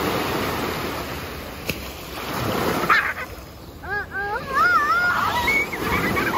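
Small ocean waves breaking and washing over the sand, with splashing in the shallow surf, swelling twice in the first three seconds. From about four seconds in, a child's high, wavering voice calls out over the surf.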